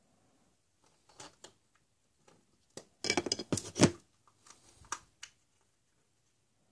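Hollow plastic surprise eggs clicking and clattering against each other as a hand rummages through a bin of them. The clatter is loudest in a dense run of knocks about three seconds in, followed by a few lighter clicks as one plastic egg is pulled open.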